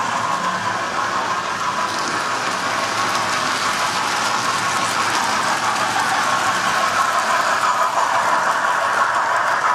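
Several model trains running on a model railway layout: a steady whirr of their electric motors and wheels on the track, growing a little louder over the last few seconds.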